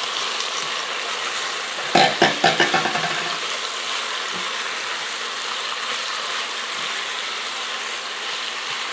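Chicken breast pieces sizzling as they sear in the Ninja PossibleCooker's pot, browning so their juices come out, with a steady hiss throughout. About two seconds in, a quick run of knocks and scrapes as the silicone spatula stirs the pieces against the pot.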